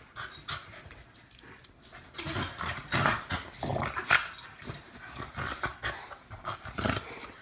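Dogs play-fighting, with growls coming in short, irregular bursts that are loudest about three and four seconds in.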